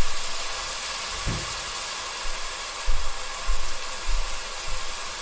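Ground spices frying in vegetable oil in a cooking pot, a steady sizzling hiss, with several dull low thumps.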